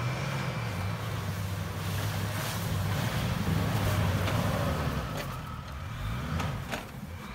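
Land Rover Defender engine working hard under load as the vehicle pushes through deep snow with its wheels throwing snow. The engine note swells to its loudest about halfway through, then eases off, with a few sharp knocks near the end.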